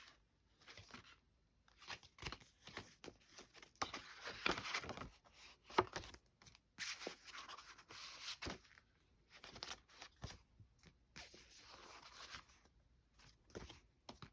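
Paper greeting cards being handled and sorted: irregular rustling and sliding of card stock, with small taps and clicks.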